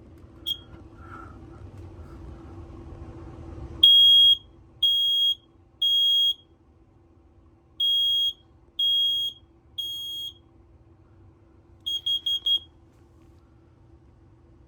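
First Alert PC1210 ten-year smoke alarm sounding its test signal: a single short high beep, then two sets of three loud beeps about a second apart (the standard temporal-three alarm pattern), then four quick short beeps near the end.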